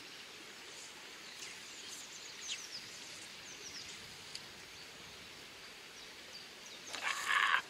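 River water running steadily over stones in a shallow riffle, with a few faint bird chirps in the first half. A brief louder rustling noise comes near the end.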